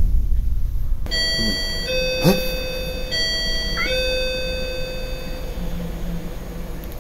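Electronic intercom doorbell chiming ding-dong twice: a short higher note, then a longer lower one, the second lower note fading away.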